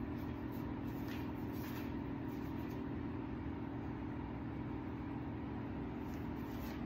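A steady low hum with an even hiss underneath, unchanging throughout, with a couple of faint soft rustles between one and two seconds in.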